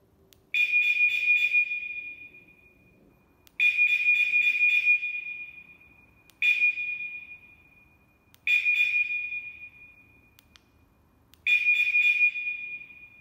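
Steelmate 986E motorcycle alarm sounding five separate high-pitched beeps. Each beep starts sharply, holds a steady pitch for about a second, then fades. They are irregularly spaced a few seconds apart and confirm each step as the alarm's sensitivity level is changed with the remote.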